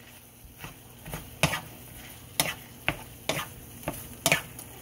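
Wooden spatula stirring and folding broccoli into shrimp in sauce in a frying pan: a series of short scrapes and knocks against the pan, about two a second, over a faint steady sizzle from the hot sauce.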